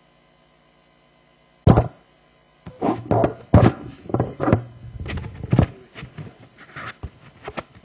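A microphone being handled: after a stretch of dead quiet, a loud thump about two seconds in, then a string of heavy knocks and rubbing that tails off into light clicks.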